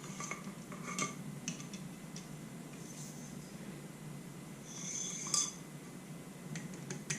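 Light clicks and clinks of small metal motorcycle fork parts being handled and set down, with a brief ringing metal clink about five seconds in.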